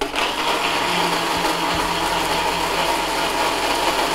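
Electric blender switched on abruptly and running steadily at full speed, grinding mint leaves and grated green mango with water into a thin purée, with a constant motor hum under the whirring.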